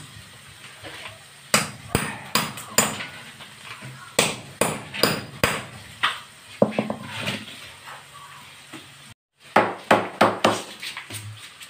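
Hammer blows on a chisel, chipping away concrete and tile from a wall base. The sharp metal strikes come in quick irregular runs, with a brief dropout about nine seconds in.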